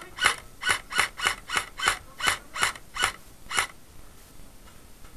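A quick run of about eleven sharp mechanical clicks, roughly three a second, that stops a little past halfway.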